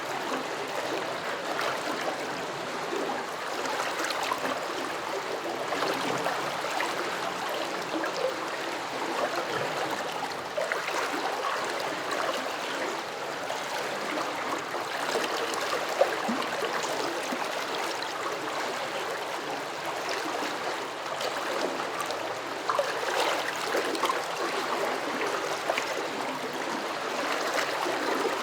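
Flowing water rippling and gurgling: a steady rush speckled with many small bubbling plops, and one brief louder gurgle a little past halfway.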